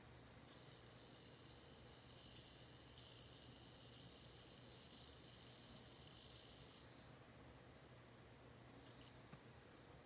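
Male bell cricket (suzumushi) singing: one high, ringing trill held for about six and a half seconds, starting about half a second in and stopping about seven seconds in.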